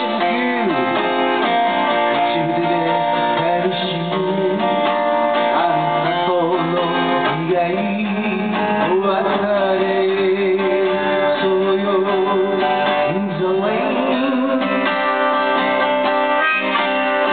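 Strummed acoustic guitar with a voice singing over it: a live song performance.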